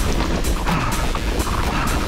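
Background music over a mountain bike riding a rough dirt trail: low wind buffeting on the microphone and quick rattling clicks from the bike.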